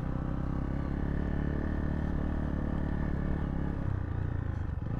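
Zontes T2 350 motorcycle engine running steadily at low revs, with an even, unchanging pitch.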